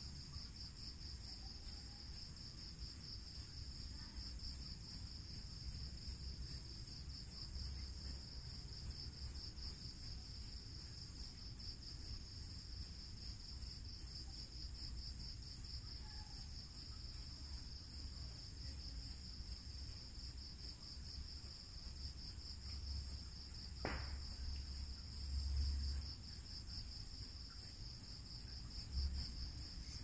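Night insects, crickets, trilling continuously in a steady high-pitched pulsing chorus, with a second, higher pulsing layer above it. A low rumble comes and goes underneath, and there is a single sharp click about two-thirds of the way through.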